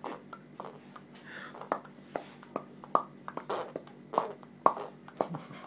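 Mouth popping sounds, a dozen or so short sharp pops at an irregular pace, some with a brief hollow ring.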